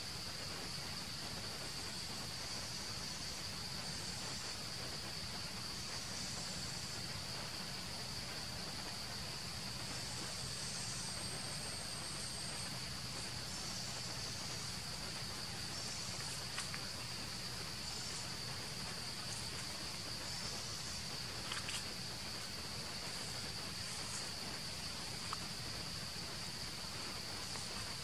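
Steady, high-pitched insect drone, unbroken, over a soft background hiss, with a few faint clicks later on.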